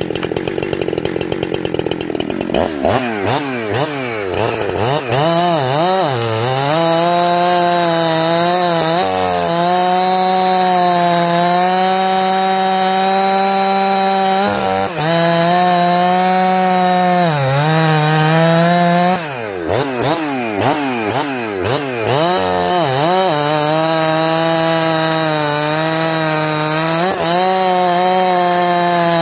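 Two-stroke chainsaw running at full throttle while noodling a log along the grain. Its pitch drops each time the chain digs in and rises again as the saw comes free, and it holds steady through the longer cuts. This is a test run of the carburetor just after a slight low-jet adjustment.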